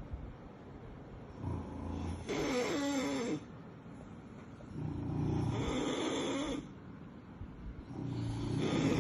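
Sleeping Labrador puppy snoring: three snoring breaths about three seconds apart, each with a wavering, slightly whistling pitch over a low rumble.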